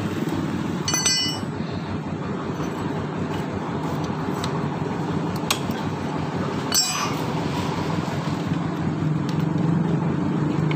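Two metallic clinks with a brief ring, one about a second in and one near seven seconds, from metal parts handled at the engine's oil filler. Under them runs a steady low mechanical hum.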